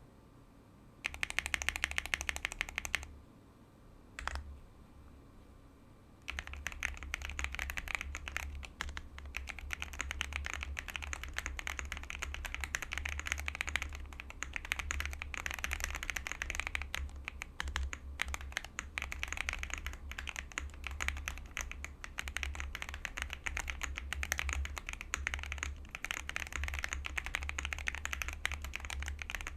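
Mechanical keyboard being typed on fast: an Akko Alice Plus with Krytox-lubed Akko POM Pink switches on a polycarbonate plate. A short burst of typing comes first, then a single keystroke, then continuous rapid typing from about six seconds in.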